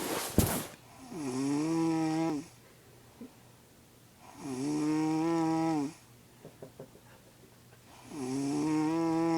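Snoring that sounds like a cow mooing: three drawn-out, low, moo-like tones, each about a second and a half long and about three and a half seconds apart, rising in pitch at the start and sagging at the end. Just after the start comes a brief hiss ending in a sharp click, the loudest sound.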